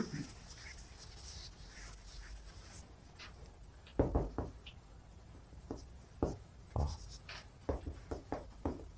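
Handwriting, likely on a board: light scratchy strokes for the first few seconds, then a run of short, sharp taps and strokes from about four seconds in.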